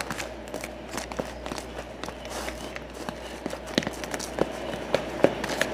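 Brownie batter being stirred by hand in a plastic tub, with irregular light taps and clicks of the stirring utensil against the plastic that come faster in the second half.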